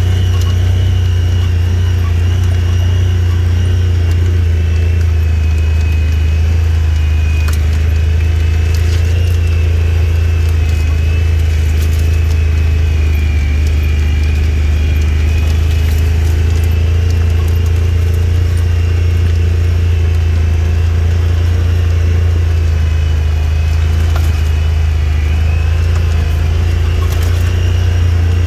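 Vehicle engine and drivetrain running steadily at low speed on a rough dirt track, a constant low drone with a fainter higher whine above it and a few light ticks from bumps.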